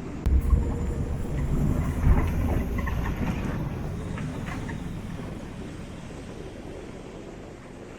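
Rushing water of a waterfall, mostly a low rumble, with wind buffeting the microphone in two sharp gusts, just after the start and about two seconds in; the noise then slowly fades.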